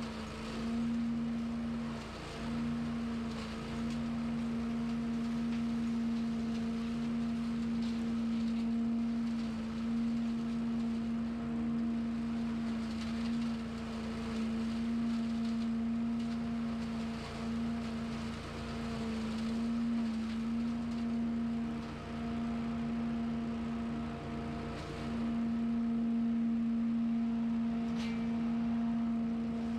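Small petrol engine of lawn equipment running steadily at high speed: an even droning hum that dips briefly every few seconds. A single sharp tick sounds near the end.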